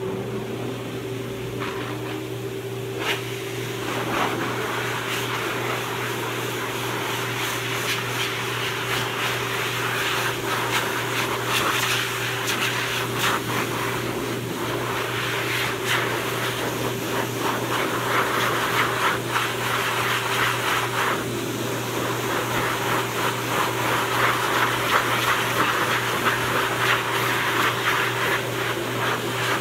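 Hose-type pet dryer blowing: a steady motor hum under a rush of air, the air noise rising and falling as the nozzle is moved over the coat.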